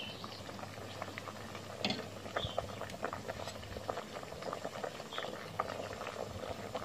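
Curry broth at a rolling boil in an aluminium pot, bubbling with many small irregular pops and crackles.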